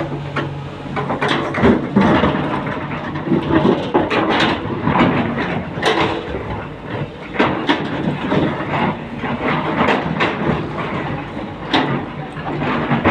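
Heavy machinery working: loud, irregular metallic clanking and knocking over a continuous rumble, like an excavator's tracks and bucket at work.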